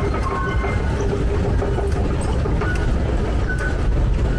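Metro train running, a steady low rumble with no change in pace.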